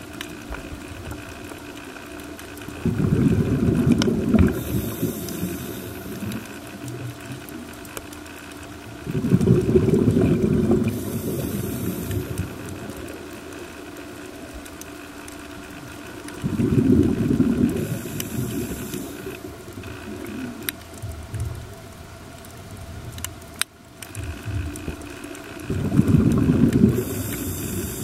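Scuba diver breathing through a regulator underwater: four exhalations, each a rush of bubbles lasting a second or two, spaced six to nine seconds apart, each followed by a softer high hiss.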